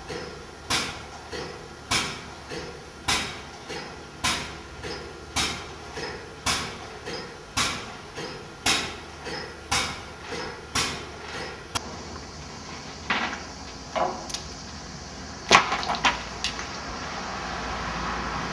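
Metal being struck with a hammer in a steady rhythm, about one ringing blow a second. The blows stop about twelve seconds in and a few irregular knocks follow. Near the end a steady rushing noise rises.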